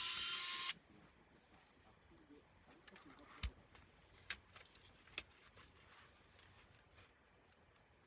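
Small electric screwdriver running steadily and cutting off suddenly under a second in, followed by a few light clicks and taps of small parts being handled during laptop disassembly.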